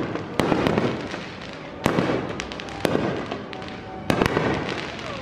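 Aerial fireworks bursting overhead: a series of sharp bangs roughly a second apart, two in quick succession near the end, each dying away in a crackling rumble.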